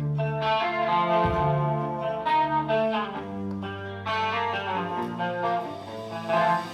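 Instrumental music: the slow guitar intro of a live heavy metal song, single held notes forming a melody over sustained low notes.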